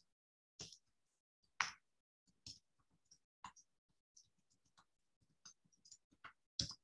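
Near-silent phone line on hold, broken by faint, irregular clicks and taps; the loudest come about a second in and near the end.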